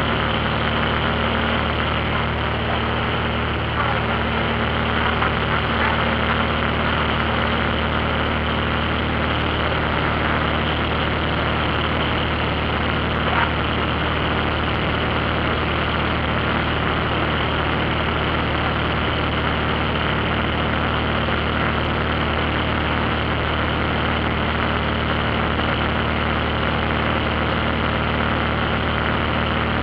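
Light airplane's engine and propeller running steadily in cruise, heard from inside the cabin as an even drone with a rush of air over it.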